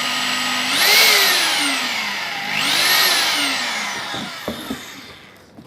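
DeWalt D25133 rotary hammer drill motor running on test with its newly replaced armature and field coil: steady running, then twice speeding up sharply and slowing back down, then winding down to a stop near the end with a couple of clicks. The motor runs normally, so the repair works.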